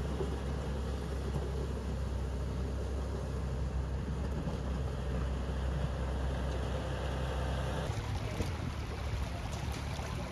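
Heavy-equipment engine running steadily as a tractor loader clears mud from a road. About eight seconds in it gives way to the rush of muddy floodwater, with shovels scraping and clinking on rocks and gravel.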